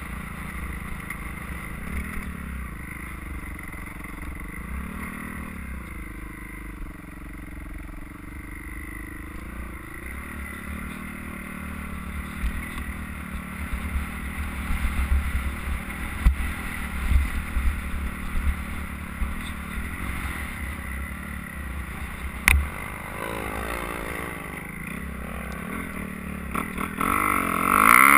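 Dirt bike engine heard from a helmet-mounted camera, with wind rumbling on the microphone; the engine pitch rises and falls as the bike rides the trail, with a few sharp knocks from bumps. Near the end the engine suddenly gets much louder as it is opened up to climb a steep hill.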